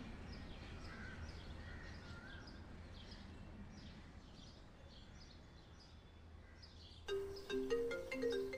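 Outdoor ambience: small birds chirping over and over above a low, steady rumble. About seven seconds in, a short melody of held, stepping notes comes in and is louder than the birds.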